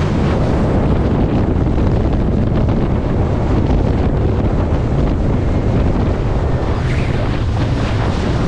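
Small fibreglass centre-console boat running at speed through chop: wind buffeting the microphone over rushing water and wake spray, with the steady hum of its Suzuki DF100 outboard beneath.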